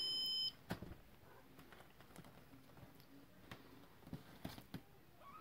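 Kittens scuffling and padding on pillows and bedding, giving soft, irregular thumps. A short electronic tone sequence cuts off about half a second in, and a kitten's meow begins right at the end.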